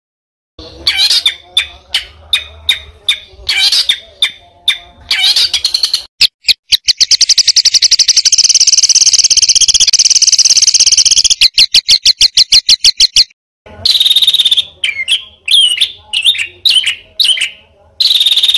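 Songbird singing loudly: short chirps and whistled phrases, then a long rapid-fire run of fast repeated notes lasting about seven seconds, then more chirps.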